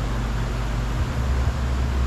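Steady low rumble and hiss of background noise, the rumble growing stronger about halfway through.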